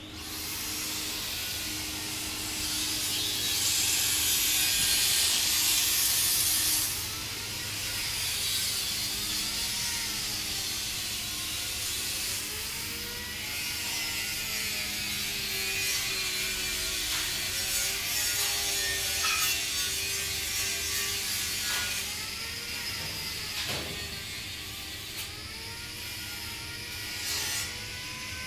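Handheld angle grinder working a steel frame: a harsh hiss of the disc on metal over the motor's whine. The whine dips and recovers as the disc is pressed into the work. It is loudest a few seconds in.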